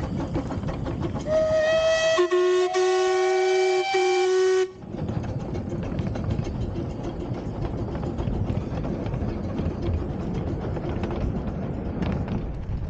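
Miniature steam locomotive whistles sounding for a few seconds: a higher note starts about a second in and is joined by a lower one, both held steady before cutting off abruptly. Steady running noise from the train follows.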